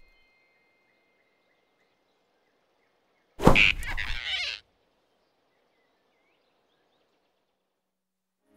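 Cartoon sound effect of a big rabbit snatching a flying squirrel: one sudden loud burst about a second long, a little over three seconds in, with near silence before and after it.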